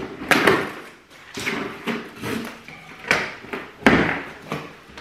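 A large cardboard box being opened and handled: a series of cardboard scrapes and rustles as the flaps are worked open and plastic packing straps pulled off, the loudest just before four seconds in.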